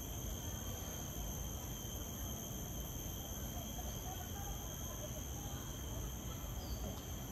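Insects chirring steadily in several unbroken high tones, over a low rumble of background noise.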